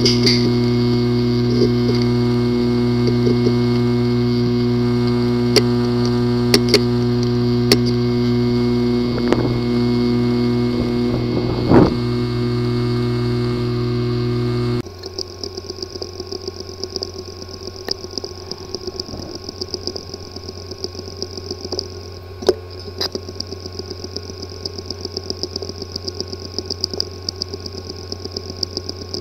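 Hard drives with physically damaged disk assemblies running: first a steady hum with a few scattered sharp clicks, then, about 15 seconds in, an abrupt change to another drive whose steady whine carries rapid, repeated ticking. The clicking is the sign of a physically damaged disk assembly, a drive that no computer can access.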